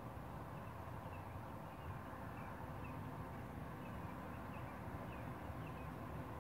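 Open-field ambience: a steady low rumbling background noise with faint, short bird chirps scattered throughout.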